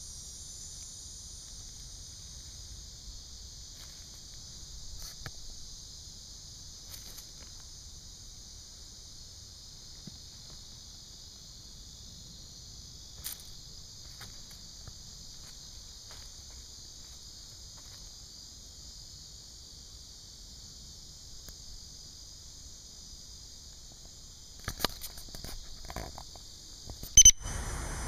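Steady, high-pitched chorus of insects in the trees, unbroken throughout. A few clicks and knocks come near the end, the loudest a sharp one just before the end.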